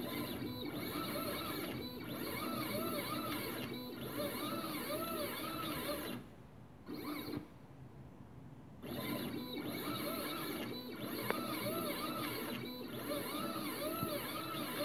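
Stepper motors of a homemade two-axis mini CNC under Grbl control, driving their lead screws and whining in pitches that rise and fall over and over as the axes trace arcs in circular interpolation. The motion stops about six seconds in, with a brief burst during the pause, and starts again about nine seconds in.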